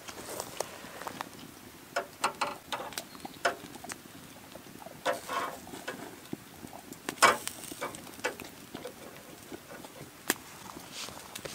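Campfire crackling under a rump steak on a wire grill, with irregular sharp pops and cracks. About seven seconds in, a louder knock comes as the steak is turned over on the grill.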